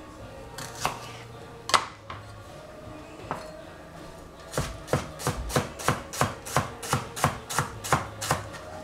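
Kitchen knife chopping shallots on a cutting board: a few separate cuts, then from about halfway a quick, even run of chops, around four a second.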